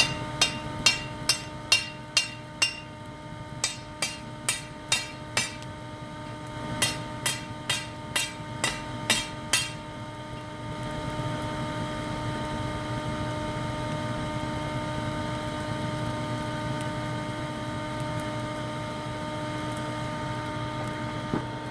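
Hand hammer striking a red-hot bar of 5160 high-carbon spring steel on an anvil, about two blows a second in three runs, over the steady hum of a shop vac used as the forge blower. About ten seconds in the hammering stops and the shop-vac-blown charcoal forge runs louder and steadily.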